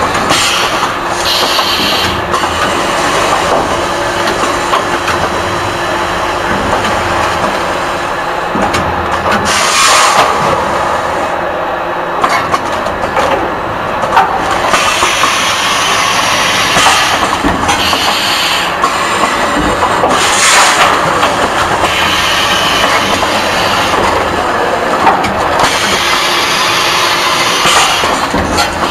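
Pet food packaging machine running: continuous mechanical clatter, with short bursts of hissing every few seconds.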